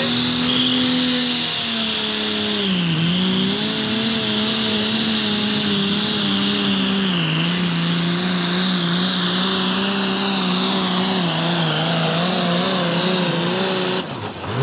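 Allis-Chalmers D-21 pulling tractor's turbocharged diesel engine running under full load as it pulls the sled, with a high whine over the engine note. The engine note sags briefly about three seconds in, then holds lower and steady.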